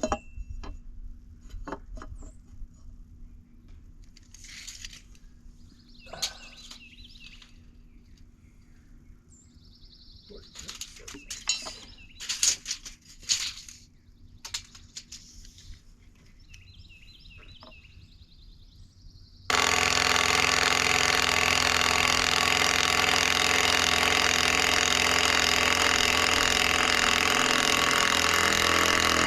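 Scattered clicks and short bursts of handling, then a cordless impact driver starts abruptly about two-thirds of the way in and hammers steadily and loudly as it drives a screw into the timber track.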